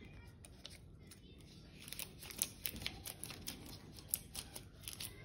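Clear sticky tape being handled and cut with scissors on paper: sharp, irregular clicks and snips, several a second, starting about two seconds in.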